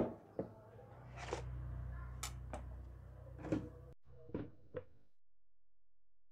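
Patterned glass bowls handled on a table: a series of light knocks and bright clinks as they are touched and set down, over a low steady hum.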